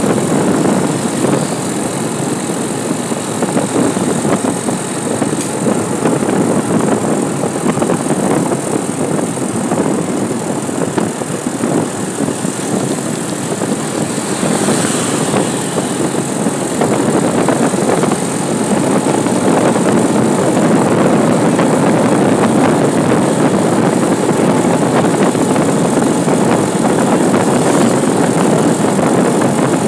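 Steady rush of wind and engine noise from a vehicle moving along a paved road, with a brief brighter hiss about halfway through.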